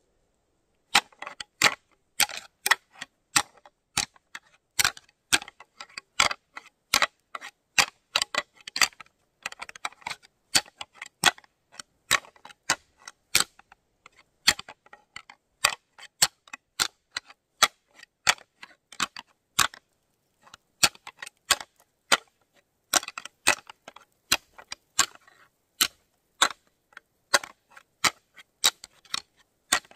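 A pair of shed whitetail deer antlers rattled together: sharp, irregular clacks and clicks, several a second with brief pauses, starting about a second in. It is antler rattling during the rut, imitating two bucks fighting to call in a territorial buck.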